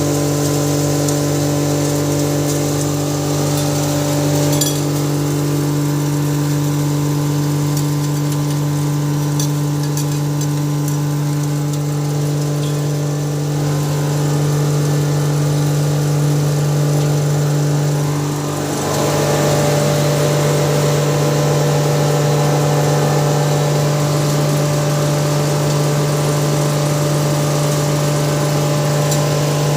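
Hammer-mill grinder running steadily with a strong, even hum. About eighteen seconds in, the sound dips for a moment and then carries on harsher and noisier. A few light clicks come in the first half.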